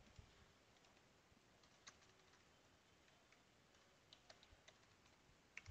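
Faint computer keyboard typing: scattered key clicks, a short quick run of them about four seconds in.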